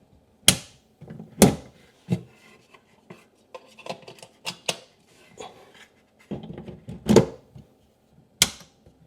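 Sharp plastic clicks and knocks from a mains plug and a smart plug being handled, unplugged and pushed into a wall socket, with the loudest knocks about half a second, a second and a half, and seven seconds in, and lighter rattling between.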